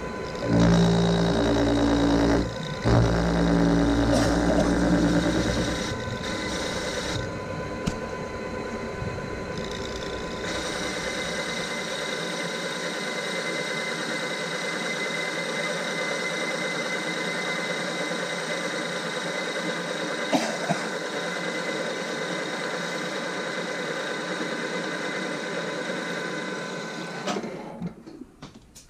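Takisawa TAL510 engine lathe running and cutting hexagonal bar stock: an interrupted cut, with the tool meeting the hex corners on every turn. It is loudest for the first few seconds, then runs steadily, and winds down near the end.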